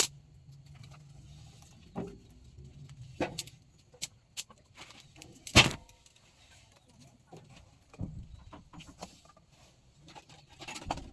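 Scattered sharp knocks and clicks, about six in all, the loudest a little past halfway, from work at a wood-fired stove where water is being heated.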